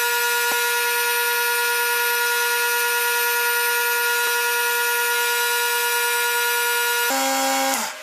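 Skew chisel squealing as it cuts a spinning Alumilite resin pen blank on the lathe: a loud, steady high-pitched whine that drops to a lower pitch about seven seconds in and cuts off suddenly near the end.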